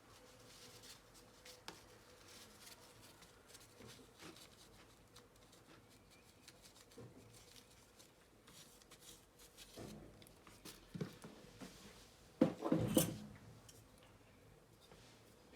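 Faint handling sounds of small laptop parts and tools: scattered light clicks and rubbing, with a louder short clatter of clicks near the end.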